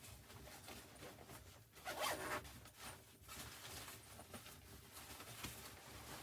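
A series of short rasping, rustling handling sounds, the loudest about two seconds in.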